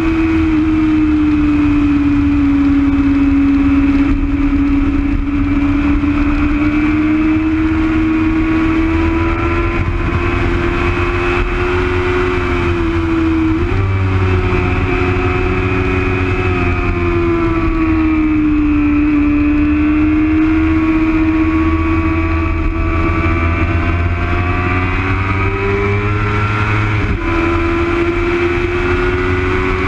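Onboard sound of a racing motorcycle ridden hard on track. The engine's note stays loud and steady, rising and falling with the throttle, with a sudden jump up in pitch about 13 seconds in and another step near the end. Under it runs a constant low rush of wind.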